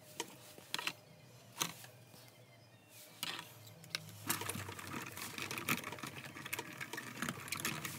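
Sizzix Big Shot die-cutting machine being hand-cranked, the die and embossing mat sandwich feeding through its rollers with a rapid, uneven clicking and rattling that starts about halfway through. Before that, a few light clicks from handling the plastic platform and die.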